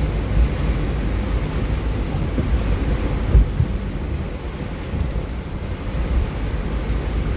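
Off-road vehicle driving through deep water: a steady low rumble of the engine and water washing around the body, with wind buffeting on the microphone. A single louder knock about three and a half seconds in.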